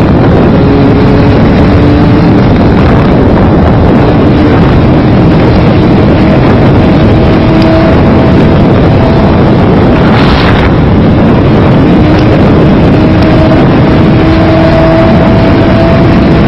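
Kawasaki Z1000R's 1043 cc inline-four engine at full throttle above 200 km/h, heard as a faint tone slowly rising in pitch as the bike gains speed, buried under loud, steady wind rush on the microphone. A brief louder gust about ten seconds in.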